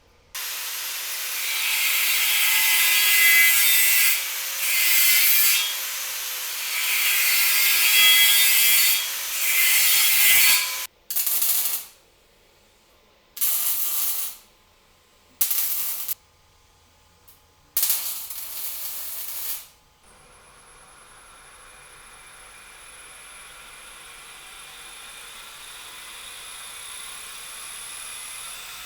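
About ten seconds of harsh, hissing workshop-tool noise, then four shorter bursts of it. After that, a driveshaft balancing machine spins the Ford Transit driveshaft up with a slowly rising hiss and a thin, steady high whine.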